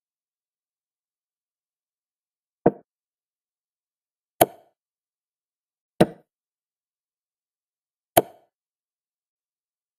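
Chess app's piece-move sound effects: four short wooden clicks, one for each move played on the board, about one and a half to two seconds apart, with silence between them.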